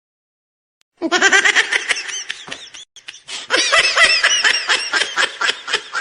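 High-pitched laughter that breaks in suddenly about a second in, pauses briefly just before three seconds, then carries on.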